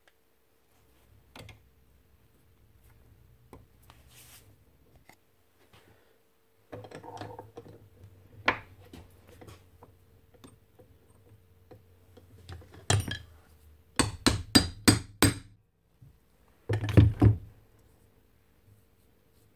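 Metal tools and motor parts clinking and knocking on a workbench while the bearings of a DeWalt DW718 miter saw motor are being changed. Scattered light taps give way, about two-thirds through, to a quick run of five sharp metallic strikes, followed by another loud knock a couple of seconds later.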